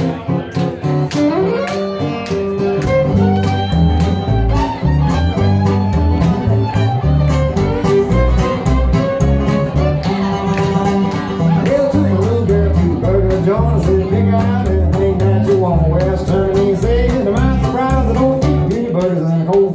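Acoustic string band playing live, with banjo, upright bass, acoustic guitar and bowed fiddle. The upright bass sets a steady, even rhythm of notes under the fiddle and strummed strings.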